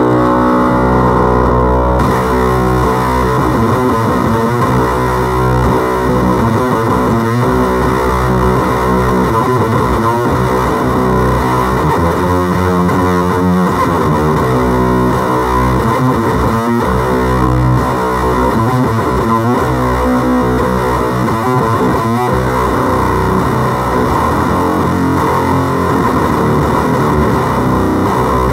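Electric guitar played through a FOWL Sounds Octagram Fuzz pedal into a small amplifier: thick, heavily distorted fuzz tone, with sustained notes changing every second or two.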